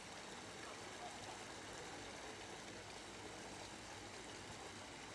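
Faint steady rushing noise with no distinct events.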